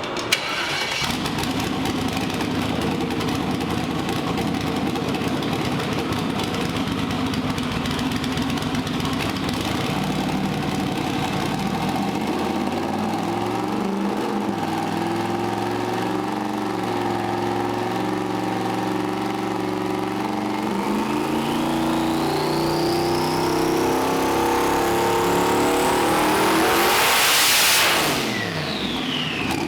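Twin-turbo LS V8 running on a hub dyno: after a steady stretch the engine note climbs in steps through a pull, with the turbos' whistle rising to a very high pitch over the last several seconds. Near the end the pull cuts off sharply, and the turbo whine falls away as they spool down.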